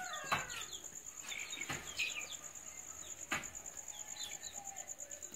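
Three dull thuds about a second and a half apart as a long digging bar is driven into the ground to dig a hole, with short bird chirps and a steady high insect trill behind.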